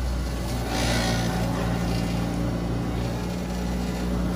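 Self-serve milkshake blending machine running mid-cycle: a steady motor hum, with a short hissing whoosh about a second in.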